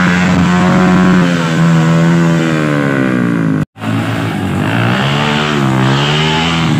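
Dirt bike engine revving hard under load on a steep muddy uphill climb, its pitch sagging and rising as the throttle is worked. The sound breaks off for an instant a little past halfway, then picks up again on another bike, whose pitch rises and falls.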